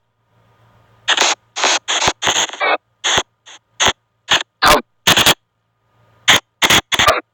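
Spirit box app on a phone sounding short, choppy bursts of garbled, noisy audio, several a second. The bursts stop for about a second at the start and again a little after five seconds.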